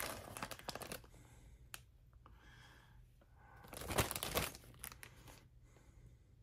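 Small clear plastic parts bags crinkling as they are handled, in two short bouts: one in the first second and another about four seconds in.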